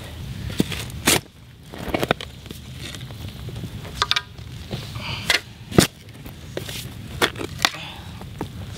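A steel spade being driven into soft forest soil and dirt being shoveled: a series of sharp crunching, scraping strikes, about one every second, some in quick pairs.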